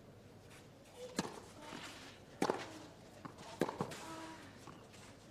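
A few sharp knocks of a tennis ball on a clay court, the last two close together, over a faint crowd murmur.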